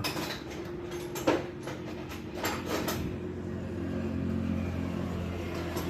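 A steady machine hum runs under several short metallic clanks and rattles, the sharpest about a second in and again between two and three seconds in.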